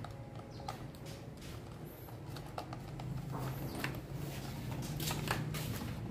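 Small scattered clicks and scrapes of a screwdriver working a circuit breaker's terminal screw while wires and lugs are handled, with a low steady hum growing from about three seconds in.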